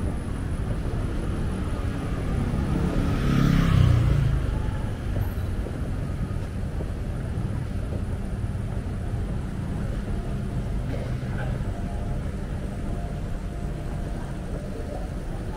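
Street traffic with a steady low hum. A motor vehicle passes close about three to four seconds in, its engine note falling as it goes by.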